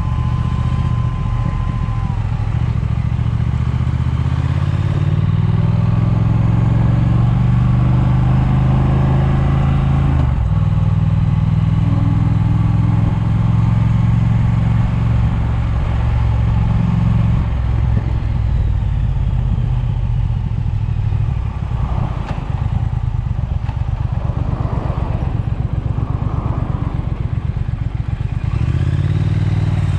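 Triumph motorcycle engine running under way with wind on the microphone. There is a shift in the engine note about ten seconds in. From about seventeen seconds the engine drops to a slow, uneven beat, then picks up again near the end.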